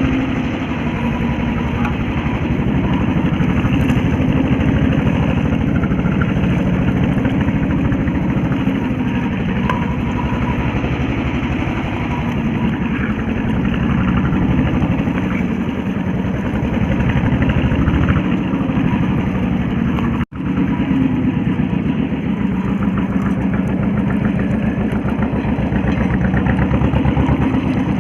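Fishing boat's engine running steadily, with a split-second break about twenty seconds in.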